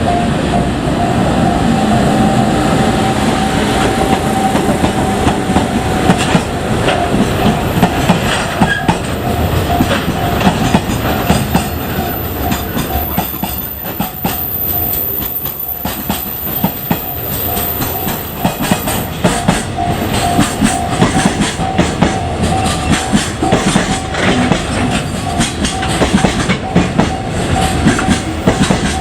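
A long container freight train hauled by an electric locomotive rolling past, its wheels clacking over the rail joints. Over the train noise a level-crossing warning bell rings, one steady tone that turns into a regular on-off pulse in the second half.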